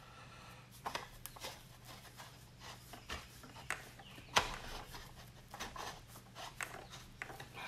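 Stainless steel pump barrel being turned by hand onto a booster pump's reverse thread: light metal scraping and clicking, with one sharper clack about four and a half seconds in.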